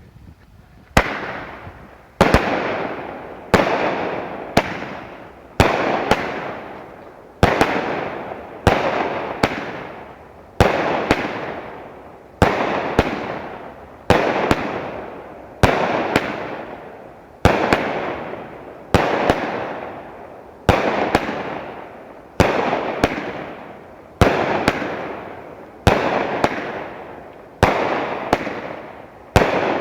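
Magnus Fireworks T.M.I, a 25-shot 200-gram fireworks cake, firing shot after shot from about a second in, roughly one every 1.2 seconds. Each shot is a sharp bang followed by a tail that fades over about a second.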